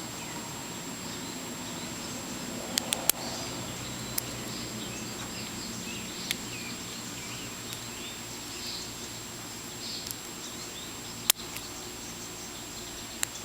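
Small sharp clicks of a lock pick and tension wrench working the pins of a gummy, oil-clogged Brooks padlock: a quick group of three about three seconds in, a few single ones, and the loudest about eleven seconds in. Behind them are a steady faint hum and birds chirping faintly.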